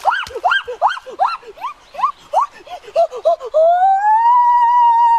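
A large white chicken squawking in alarm as it is gripped by hand: a run of short rising squawks, about three a second, then one long drawn-out screech from about three and a half seconds in.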